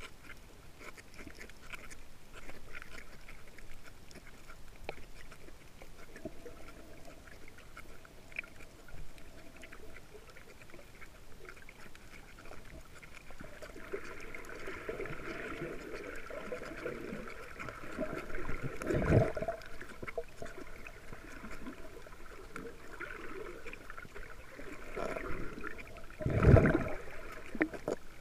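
Muffled underwater sound heard through a waterproof camera housing: water swishing with faint crackles, and two dull thumps, one about two-thirds of the way through and a louder one near the end.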